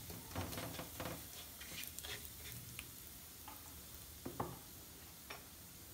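Red chilli flakes sizzling faintly in a little olive oil in a nonstick frying pan, with a silicone spatula stirring them early on. Scattered light crackles thin out after a few seconds, with a couple of sharper ticks a little after four seconds.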